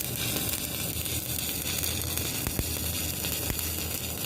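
Electric arc of a stick (shielded metal arc) welding electrode, sizzling and crackling steadily, with a low hum underneath and a few faint ticks in the middle.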